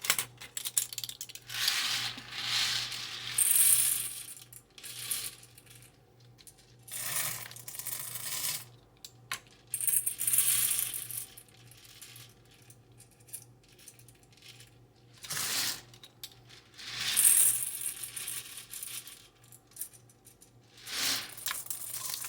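Dry popcorn kernels poured a tablespoon at a time into a cooking pot, each spoonful a short clatter of small hard grains, with quiet gaps between them.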